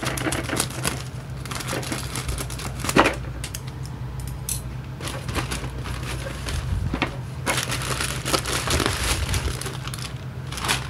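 Thin plastic courier mailer being cut open with scissors and handled, crinkling and rustling irregularly as the plastic-wrapped box is pulled out. One sharper, louder crackle comes about three seconds in.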